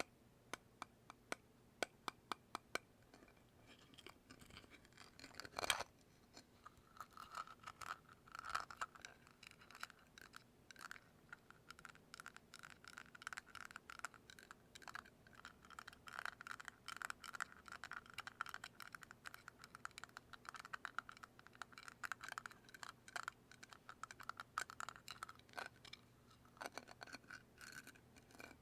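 A run of sharp taps on a small object, then steady, faint scratching and brushing close to the microphone, dotted with small clicks.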